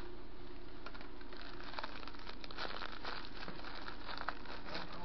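Crinkling and crackling of a plastic cracker wrapper and crackers as gloved hands pull a stack of round crackers apart, with many small scattered crackles over a steady low hum.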